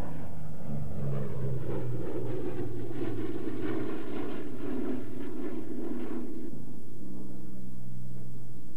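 Twin radial-engine Douglas A-26 Invader flying low past, its engines and propellers making a pulsing drone. The drone is loudest in the middle, then drops away sharply about six seconds in, leaving a lower steady engine hum.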